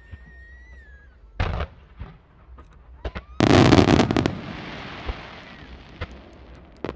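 Aerial fireworks bursting: a sharp bang and scattered pops, then a loud dense crackling burst about three and a half seconds in that trails off into a fading hiss.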